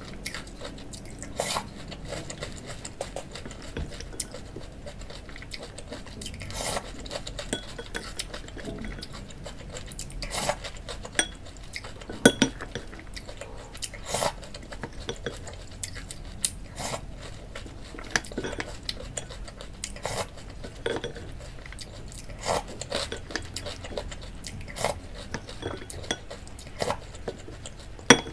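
A spoon clinking and scraping against a cereal bowl in scattered, irregular sharp taps as cereal is scooped up and eaten.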